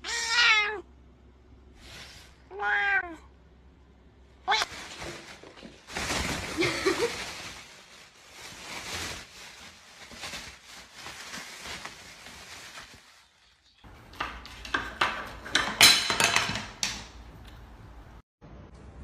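A domestic cat meowing twice near the start, two short calls falling in pitch. Longer stretches of noisier sound follow, loudest about three quarters of the way through.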